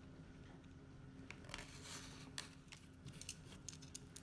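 Faint, short scraping and clicking strokes of a utility knife blade cutting through thick veg-tan leather on a cutting board, over a low steady hum.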